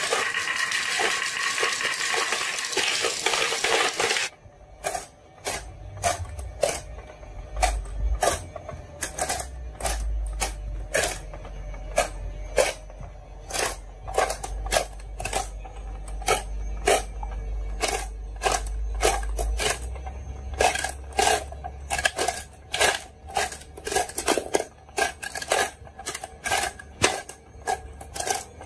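Glass marbles rattling densely down a wooden track, cutting off about four seconds in. Then a long run of sharp single clicks, about one or two a second, as glass marbles drop into and knock against each other in the holes of a plastic toy board, over a low hum.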